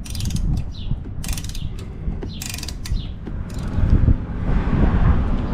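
Hand tool cutting threads in the spark plug hole of a Toro TimeMaster mower's cylinder head, to seat a Helicoil thread insert: a series of sharp metallic clicks a little over a second apart, with low rumbling handling noise that gets louder near the end.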